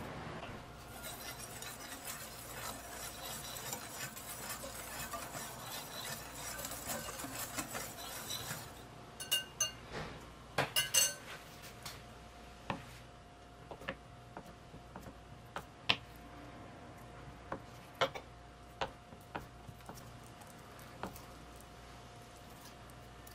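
A wire whisk stirs dry flour, sugar and baking powder in a glass bowl with a steady rapid scratching, then taps several times on the glass rim with ringing clinks. After that come a few scattered light knocks of cold butter being set down and cut on a wooden cutting board.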